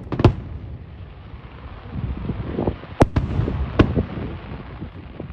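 Aerial fireworks bursting: a sharp bang just after the start, then three more about three to four seconds in, over a continuous low rumble of booms.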